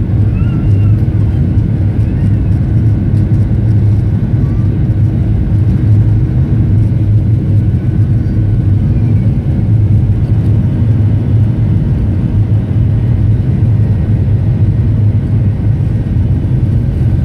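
Jet engines of a Ryanair Boeing 737 at takeoff thrust heard from inside the cabin during the takeoff roll: a loud, steady rumble with a low hum underneath.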